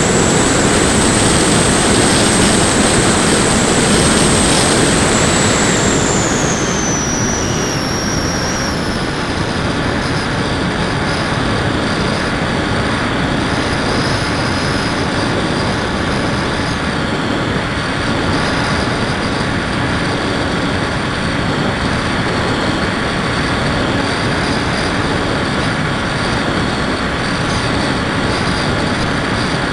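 Electric motor and propeller of an FPV Raptor model plane, picked up by its onboard action camera: a high whine over heavy rushing air. About seven seconds in, the whine falls in pitch and gets slightly quieter, then holds steady.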